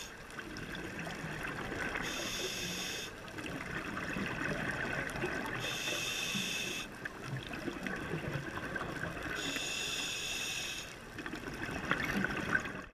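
Scuba diver breathing through a regulator, heard underwater: three hissing inhales with a high whine, about every three and a half to four seconds, each followed by bubbling exhales. A few clicks near the end.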